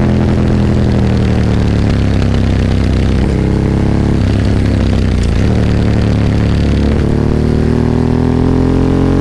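Ducati 998's L-twin engine heard onboard under way, its note climbing and then stepping down at each gear change: a drop right at the start, pitch shifts around three and four seconds in, and another drop about seven seconds in followed by a steady climb.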